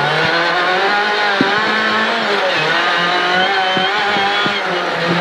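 Rally car's engine running hard, heard from inside the cabin, its pitch holding fairly steady with small dips, with a few short knocks from the car over a dirt stage.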